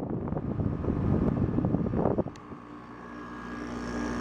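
Haier 5000 BTU window air conditioner running with compressor and fan on: a steady hum, with the fan motor on new bearings and no bearing squeal. For about the first two seconds, loud irregular rattling covers the hum, then stops abruptly.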